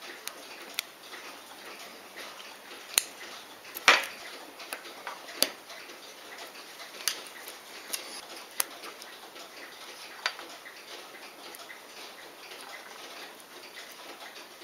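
Irregular small clicks and taps of a watchmaker's hand tool against a Poljot Signal watch movement and its dial as the dial is taken off, over a steady hiss. The sharpest clicks come about three and four seconds in, with lighter ones scattered until about ten seconds in.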